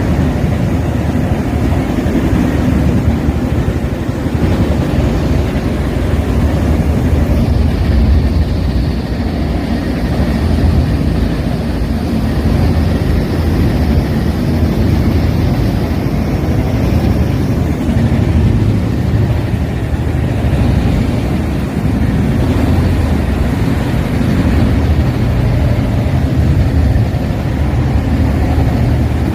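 Percussion rotary drill rig working rock: a loud, steady, low heavy-machinery rumble throughout. A faint high hiss joins about seven seconds in and fades out around ten seconds later.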